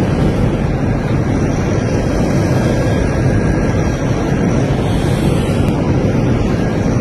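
Loud, steady roar of noise inside an airliner cabin during an emergency descent after a technical fault and loss of cabin pressure.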